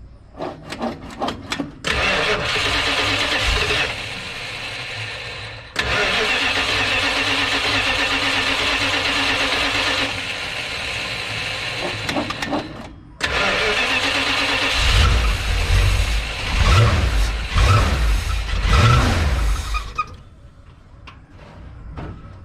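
A 383 big-block V8 in a 1970 Dodge D100 cranking on the starter in three long attempts with short breaks, on its first start after the intake and carburetor swap. During the last attempt it fires unevenly with heavy low pulses, then cuts off suddenly.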